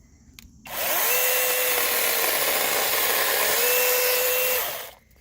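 Battery-powered 6-inch brushless mini chainsaw running at speed, starting about a second in and stopping sharply near the end. Its pitch sags for a couple of seconds in the middle, as the chain bogs while cutting through a branch, then picks up again.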